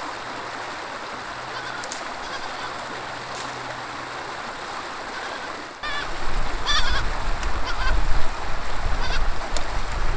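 Spanish goat kids bleating in short, high, wavering calls over a running creek. About six seconds in, a loud low rumble sets in and becomes the loudest sound.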